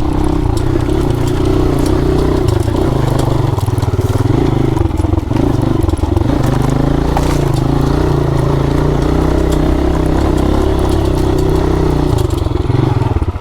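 Dirt bike engine running steadily under load on a rough trail, its pitch rising and falling with the throttle, with scattered knocks and rattles from the bike over the uneven ground.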